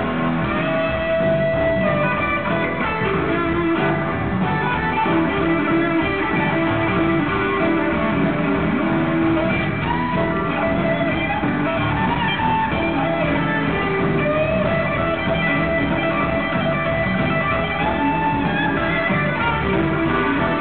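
Live blues-rock band playing an instrumental passage: electric guitars over bass and drums, with a lead guitar sliding up into notes several times.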